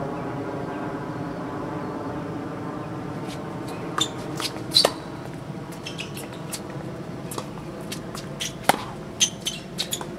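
Tennis rally on a hard court: sharp ball-on-racket pops and short shoe squeaks, starting about three seconds in, two of them louder than the rest. Underneath, a steady distant engine drone of several pitches fades slowly.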